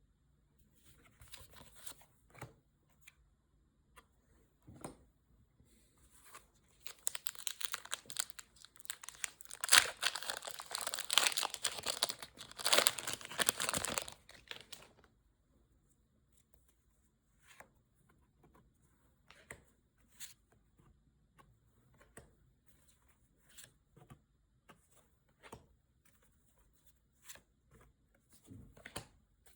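Packaging being torn open and crinkled by hand in a dense spell of about seven seconds starting about seven seconds in, with scattered light handling taps and clicks around it.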